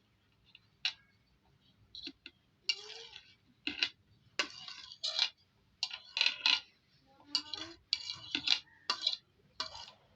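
Metal utensils clinking and scraping against kitchenware in a string of irregular short knocks and brief scrapes, with quiet gaps between them.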